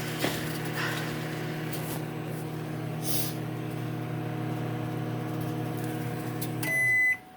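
Microwave oven running with a steady hum while heating, then shutting off near the end with a loud high-pitched beep as the heating time runs out.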